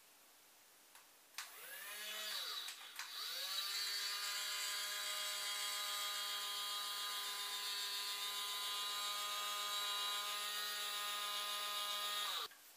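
Electric motor of a toy fire truck's ladder whirring as it raises the ladder boom. It starts about a second and a half in, rises in pitch as it comes up to speed, runs as a steady whine, then stops abruptly near the end.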